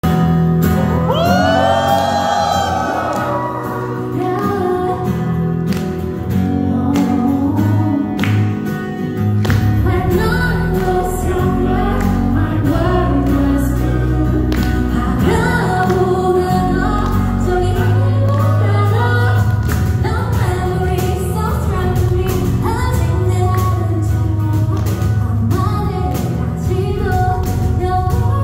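A woman singing live into a handheld microphone over an instrumental backing with a steady beat; a fuller bass and drum part comes in about ten seconds in.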